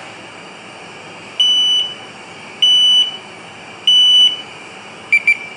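BX616 portable gas detector's buzzer beeping as its power button is held through the shutdown countdown: three loud, even, high-pitched beeps about a second and a quarter apart, then two quick, slightly lower beeps near the end as the unit switches off.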